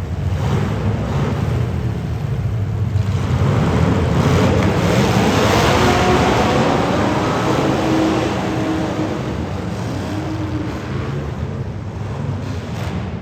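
Street stock race car engines running, with a steady low engine note and a swell that grows louder through the middle and then eases.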